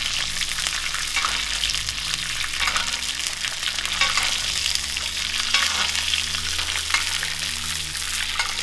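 Butter sizzling and crackling in a hot cast iron skillet around a seared elk tomahawk steak, while a spoon bastes the steak with the foaming butter.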